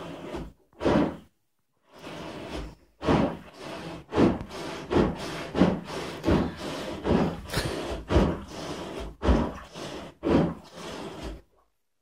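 Rubber plunger being pumped hard on a clogged shower drain under standing water: a steady run of wet squelching, sucking strokes, about one and a half a second, after a brief pause near the start.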